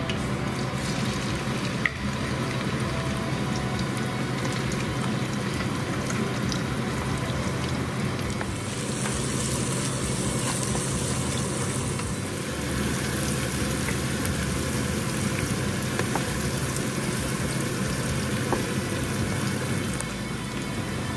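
Chopped garlic and chilies sizzling in hot oil in a wok, stirred now and then with a wooden spatula. The sizzle is steady, with one sharp click about two seconds in.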